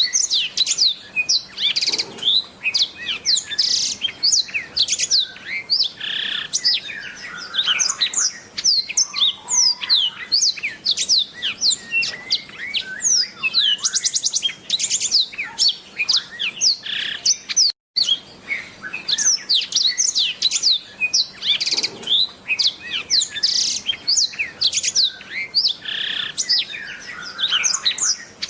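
Black-throated canary (blackthroat) singing a fast, unbroken song of rapid, high, downward-sweeping twitters. The song cuts out for a split second about two-thirds of the way through.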